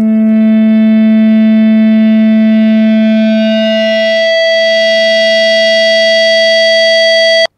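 Microphone feedback howl through an amplified speaker: sound from the speaker is picked up by the microphone and re-amplified in phase. A loud steady tone grows shriller as its higher overtones build up, with a higher squealing note taking over about halfway through, then it cuts off suddenly near the end.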